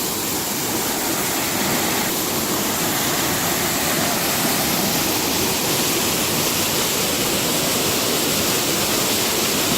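Small waterfall rushing steadily, an even hiss of falling water.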